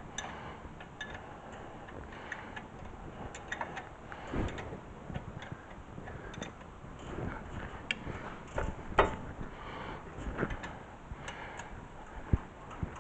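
Irregular light metallic clicks and ticks of hand work on a front brake caliper as its mounting bolts are threaded in by hand, with a sharper knock about nine seconds in and another near the end.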